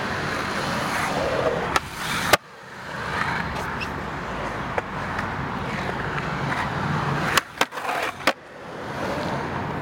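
Skateboard wheels rolling on smooth concrete, with sharp clacks of the board popping and landing: two about two seconds in and a quick cluster of three near the end.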